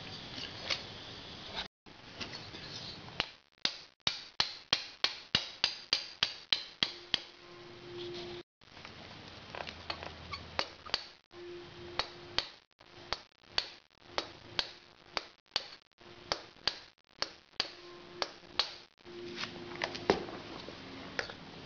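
A run of sharp, light metallic taps and clicks while a Harley-Davidson Sportster Evolution cylinder is worked down over its piston and studs. The taps come quickly and evenly for a few seconds, then more spaced and irregular.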